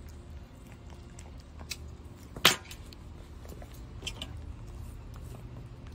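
A sharp metallic click about two and a half seconds in, with fainter clicks and a brief light jingle around four seconds, from the metal clasp of a dog-grooming leash and the dog's collar being handled as the leash is taken off. A low steady hum runs underneath.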